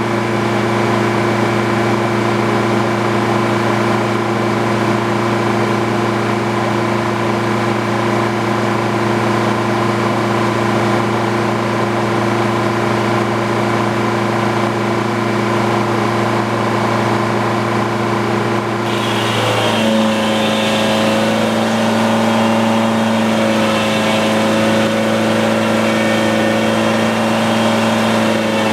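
Frick sawmill's power unit running steadily at a constant speed. About two-thirds of the way through, the sound changes abruptly: the running note steps up in pitch and a busier hiss comes in above it.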